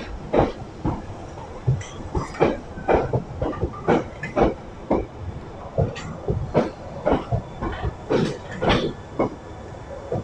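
Bakerloo line 1972 Mark 2 Stock tube train rolling past, its wheels clacking irregularly over rail joints and points, about two clacks a second over a steady rumble.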